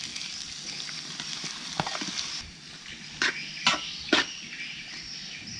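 Diced onion, carrot and squid sizzling in oil in a metal wok, the hiss easing a little about halfway through. A metal spoon stirring them strikes and scrapes the pan four times in the second half.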